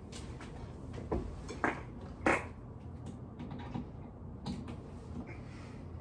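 Ceiling fan with a 212 mm spinner motor and 52-inch blades running on its lowest speed, a faint steady hum, with three sharp clicks between about one and two and a half seconds in and a fainter one later.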